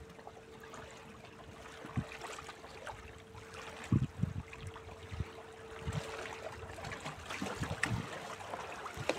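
Small sea waves lapping and splashing against rocks at the water's edge, with a few low thumps, the loudest about four seconds in.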